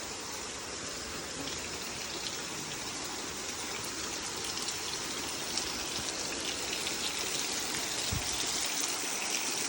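Steady rushing water, a constant noisy wash that grows slowly louder.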